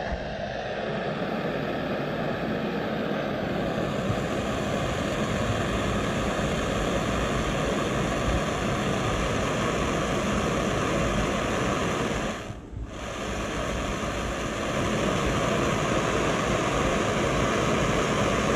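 Gas torch flame jetting out of a wooden toy shuttle's thruster, a steady hissing rush that dips briefly about two-thirds of the way through.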